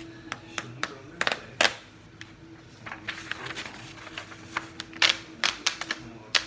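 Irregular sharp clicks and taps of small objects being handled, several in quick succession about five seconds in, over a faint steady hum.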